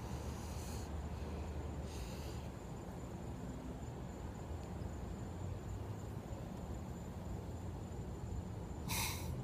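Wind buffeting the microphone as a steady low rumble, with three short breathy hisses of breath from a man smoking a cigar: near the start, about two seconds in, and near the end.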